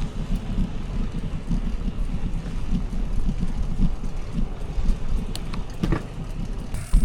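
Wind buffeting the microphone over the rumble of a mountain bike riding along, with a few sharp clicks and rattles about five to six seconds in.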